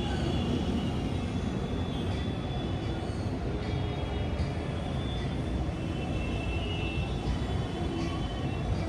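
City night ambience: a steady low rumble of urban traffic, with faint thin high tones that come and go.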